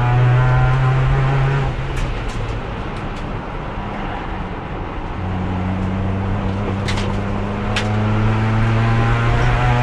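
Race car engine heard from inside the car, left in fourth gear because the gearbox is broken. It eases off about two seconds in, then pulls again from about five seconds, the revs rising steadily. A few sharp clicks come through around two and seven seconds in.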